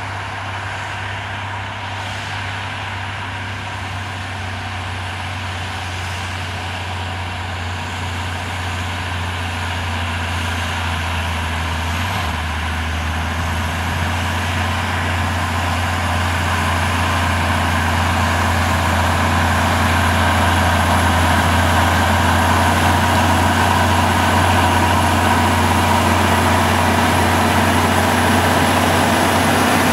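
John Deere rubber-tracked tractor's diesel engine running steadily under load while pulling a disc harrow, growing gradually louder as it approaches.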